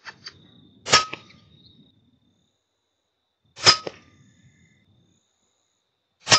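FX Impact M3 .22 PCP air rifle firing three shots, about two and a half seconds apart, each a sharp report with a brief ringing tail.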